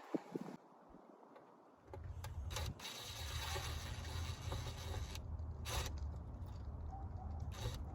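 A steady low engine-like rumble comes in about two seconds in and runs on, with a few light clicks over it.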